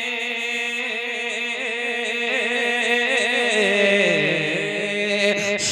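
A man singing a naat unaccompanied through a microphone and PA, drawing out one long ornamented line with a wavering pitch that steps down about three to four seconds in, over a steady lower tone.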